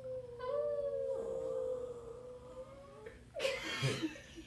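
A dog howling: one long held note that wavers slightly in pitch and fades out about three seconds in, followed by a short, harsher vocal burst near the end.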